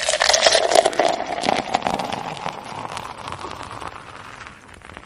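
Toddy poured from a plastic bottle into a man's mouth as he drinks, a crackly splashing and slurping of liquid that fades away over several seconds.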